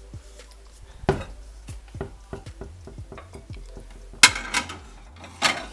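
Dishes being handled and put away: light clinks and knocks of crockery, with two louder clatters about four seconds in and near the end.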